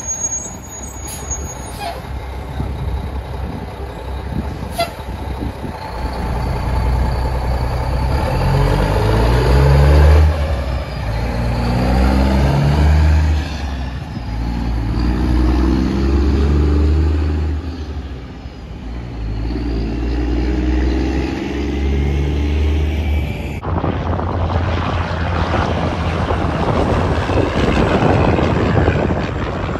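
Straight-piped diesel semi truck engines pulling away. The exhaust note climbs through each gear and drops back at every shift. After a sudden cut, a tractor-trailer passes at highway speed.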